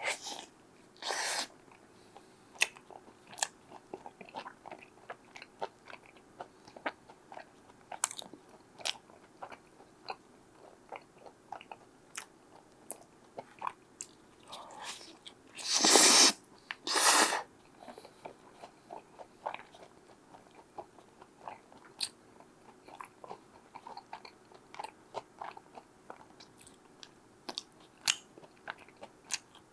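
Pizza being eaten close to the microphone: chewing with many small crackles and clicks, and a few louder crunching bites, the loudest about halfway through.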